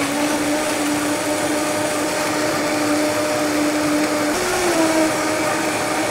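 Countertop blender motor running loud and steady at speed, blending a kefir smoothie with frozen berries and banana; its steady whine steps up slightly in pitch about four seconds in.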